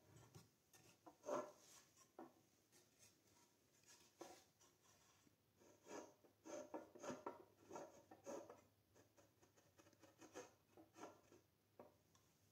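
Faint, irregular taps and short rubbing scrapes of plywood parts being handled and worked on a tabletop.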